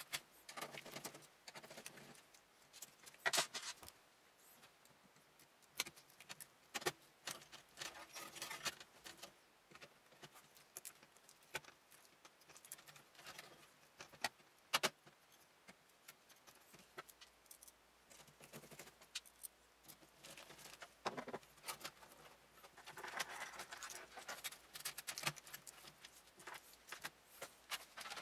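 Computer cables being handled and routed through a PC case: faint scattered clicks and rustling, with a few sharper clicks now and then.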